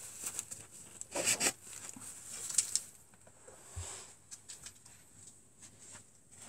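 Scrapes, rustles and small clicks of wooden arrows being handled and pulled from a polystyrene foam target, with a louder scrape about a second in.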